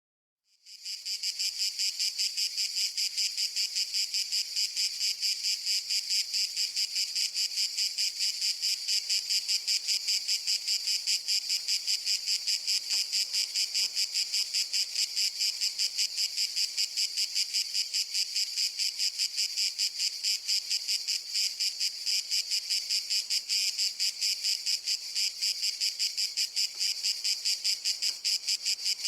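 Cicada singing: a loud, high buzzing song made of rapid even pulses that swells in within the first second and then holds steady.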